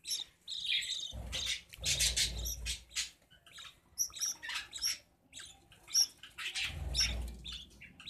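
Budgerigars chirping in quick, short, high-pitched calls in a nest box while the chicks are being fed. A low rumble comes twice, about a second in and near the end.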